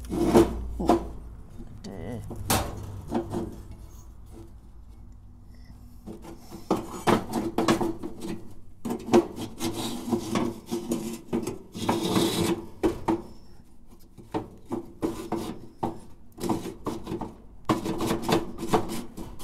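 Handling noise as the metal burner door plate of a Suburban NT-30SP RV furnace, fitted with a new gasket, is worked into place: irregular scraping and rubbing with small metal clicks and knocks, and one longer scrape about two-thirds through.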